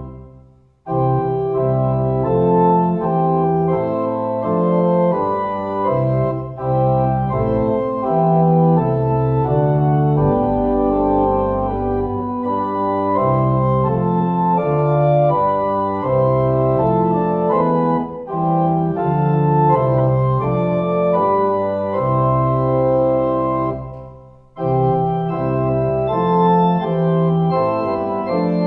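Organ music playing slow, sustained chords in phrases, breaking off briefly twice between phrases, shortly after the start and again a few seconds before the end.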